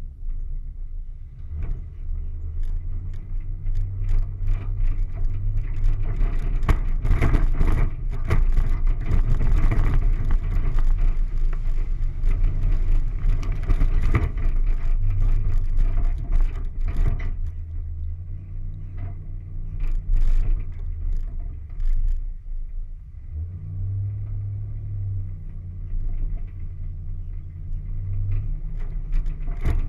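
Off-road vehicle's engine running steadily at low revs while it drives through mud. A stretch of loud knocks and rough noise from the ground runs from about a fifth of the way in to just past halfway.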